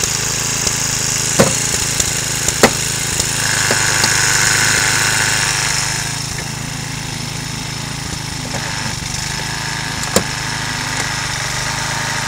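Engine of a hydraulic rescue-tool power unit running steadily while a hydraulic spreader is forced between a car's front wing and door. There are a few sharp metallic cracks, and a higher whine rises for a couple of seconds about a third of the way through as the tool works.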